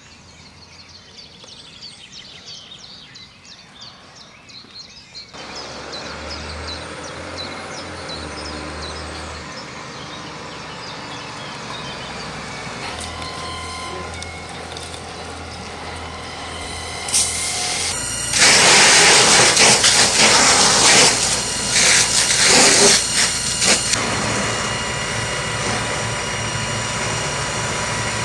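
A burning car crackles. Then a fire engine's diesel engine runs under steady noise, and about two-thirds of the way through a loud, surging hiss of hose water striking the burning car takes over.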